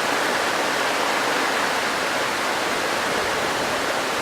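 Heavy rain pouring down, a dense, even hiss that holds steady throughout, with no thunder.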